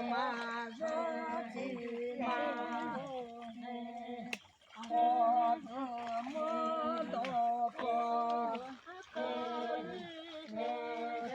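Unaccompanied voices chanting a traditional work chant, holding steady notes in short phrases with short breaks between them.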